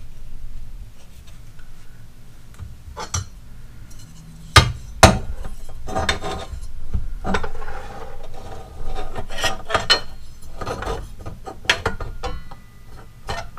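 A metal speed square being handled and set against a miter saw's blade and table, with the saw switched off: metal scraping and rubbing, with two sharp knocks about four and a half and five seconds in.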